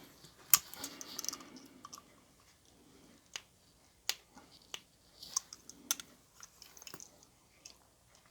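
Small metal parts of a Kershaw Cryo folding knife and a bit driver being handled at close range: irregular sharp clicks and taps, about a dozen, with soft rustling between them.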